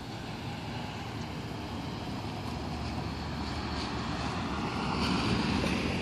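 Road traffic noise from the nearby street, steady and slowly growing louder as a vehicle approaches, with wind rumbling on the microphone.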